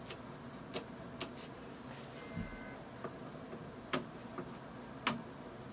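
Scissors snipping through vinyl shelf liner: a few sharp, irregularly spaced snips.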